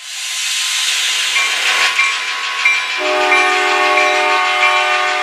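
MBTA commuter rail diesel locomotive passing with a loud hiss of engine and wheels. About three seconds in its air horn starts a steady multi-note chord, over the regular dinging of a grade-crossing bell.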